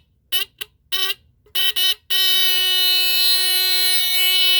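Vintage late-1960s Japanese battery-powered fire alarm horn sounding: several short blasts, then from about two seconds in a steady, unbroken buzzing tone.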